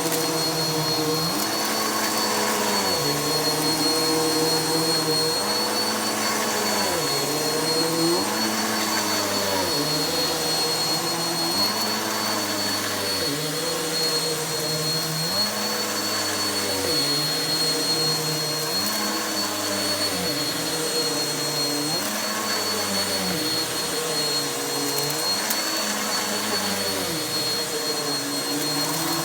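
Vacuum cleaner running on carpet with a steady high whine, pushed back and forth so that its sound rises and falls with each stroke, about every second and a half to two seconds.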